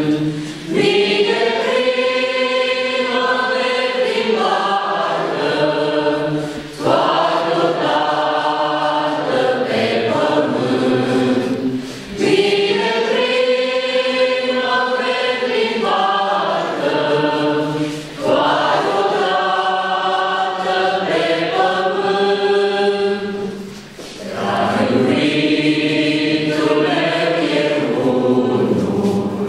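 Congregation singing a hymn together. The singing comes in long phrases, each broken by a short breath pause about every six seconds.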